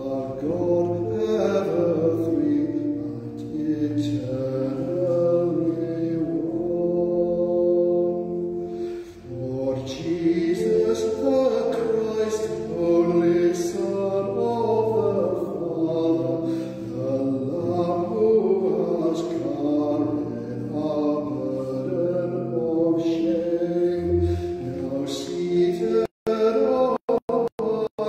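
Church organ playing slow, sustained chords of a hymn or voluntary. The sound cuts out briefly several times near the end.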